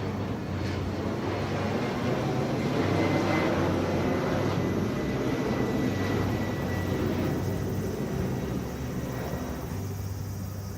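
Jet airliner passing overhead. Its engine noise swells to a peak a few seconds in, with a high whine over it, then fades away.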